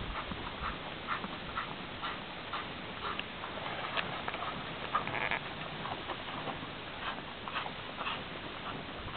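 Cow and newborn calf moving about in straw bedding: irregular soft rustles and small clicks, a few a second.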